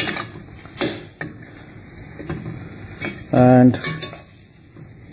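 Banana-flower curry being stirred in a pot on the heat: a steady sizzle and scraping, broken by several sharp knocks of the utensil against the pot.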